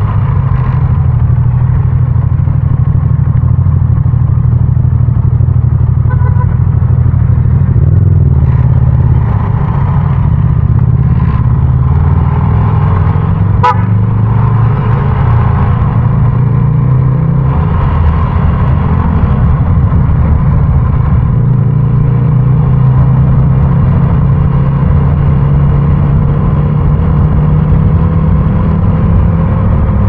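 Motorcycle engine running under way through city traffic, with no wind noise, its pitch shifting now and then with the throttle. There is one sharp click about halfway through.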